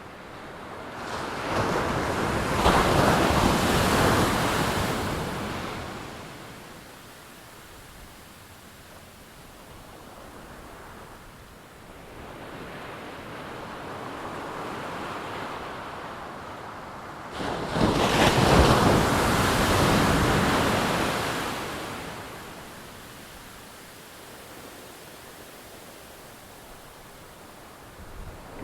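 Ocean surf: two large waves break, one a couple of seconds in and another a little past halfway, each swelling up and washing out over a few seconds, with a smaller surge between them and wind on the microphone.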